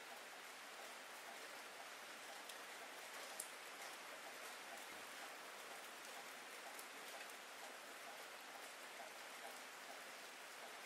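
Steady rain falling, a soft, even hiss of drops with scattered small ticks and one sharper drop about three and a half seconds in.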